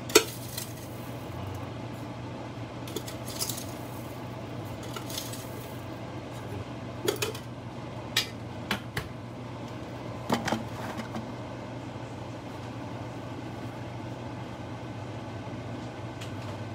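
Scattered clinks and taps of kitchen utensils and containers while sugar is added to a pot of gyudon broth, one sharp clink at the start and several more over the next ten seconds, over a steady low hum.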